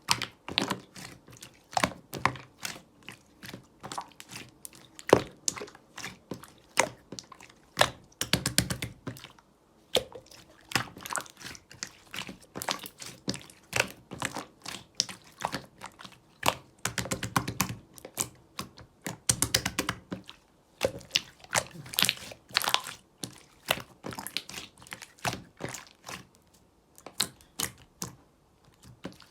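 Slime being squished and worked by hand, giving a rapid, irregular series of sticky clicks and pops, with denser crackling runs about 8, 17 and 19 seconds in.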